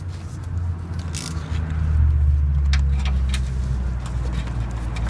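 Low, steady vehicle engine rumble that grows louder from about two seconds in. Over it come a few sharp clicks as a ratchet is brought up to the oil drain plug.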